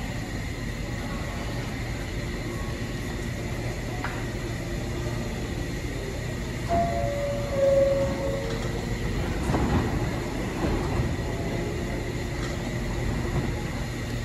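New York City subway train running in an underground station: a steady low rumble, a few short squealing notes about seven seconds in, then wheel clatter a couple of seconds later.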